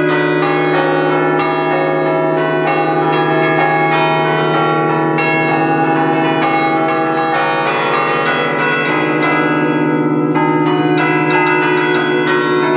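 A peal of church bells cast by Carlo Ottolina of Seregno in 1951, played as a tune from a manual ringing keyboard. Several bells are struck in quick succession, about four strokes a second, over their long ringing hum, heard close up in the belfry.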